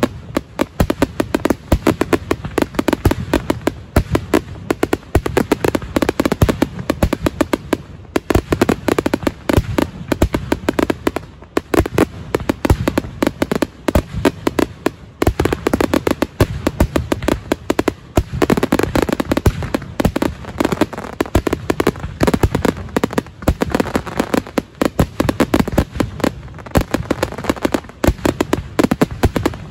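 A fireworks finale barrage: rapid, sharp bangs, several a second, running on without a break over a continuous low rumble.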